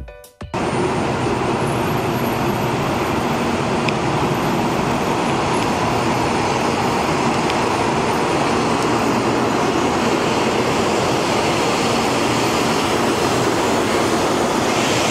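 Taiwan High Speed Rail 700T bullet train running past a station platform at speed: a loud, steady rushing roar with no change in level. It starts about half a second in, as the music cuts off.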